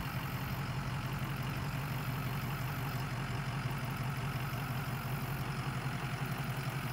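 An engine idling steadily with a fast, even low pulse.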